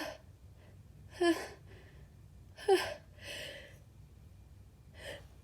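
A woman's short, sharp gasping breaths, five in a row about a second or so apart, some with a brief rising voiced catch. They are the pre-sneeze gasps of a sneezing fit as another sneeze builds.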